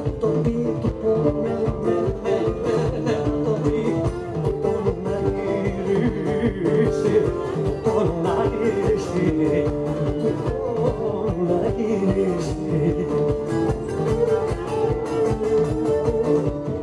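Live band playing Cretan music: a Cretan lute (laouto) plucked over a steady drum and bass beat, with a man singing.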